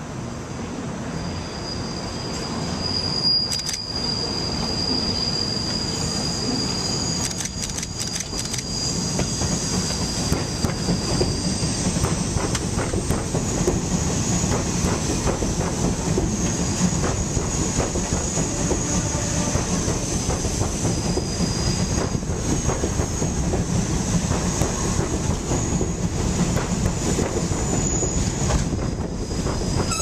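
New York City subway train on an elevated curve, its steel wheels squealing in thin, steady high tones over a rumble and clatter of wheels on rail. The sound grows louder over the first few seconds as the train nears, then holds as the cars run close by.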